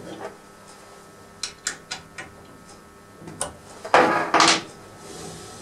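Small metal clicks and taps as hand tools and the lathe attachment's cable clamp are handled, then a short, louder scraping rub about four seconds in as a tool is picked up.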